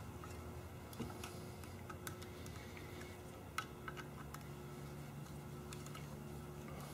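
Faint, scattered light clicks and ticks of a screwdriver tightening small sheet metal screws through crimped ring terminals into the metal housing of an electric PTO blade clutch, over a low steady background hum.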